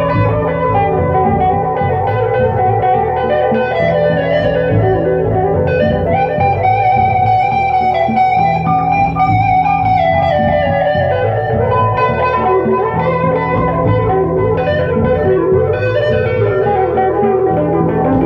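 Electric guitar jam: a continuous run of notes over repeated low notes, with a phrase that climbs and falls back in the middle.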